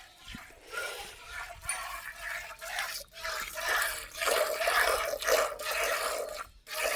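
Cow being milked by hand: rhythmic squirts of milk streaming into a pail, growing louder about halfway through.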